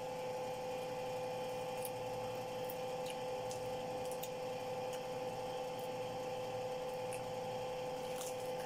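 A steady machine hum at one pitch, with a few faint soft ticks of someone chewing pomelo pulp.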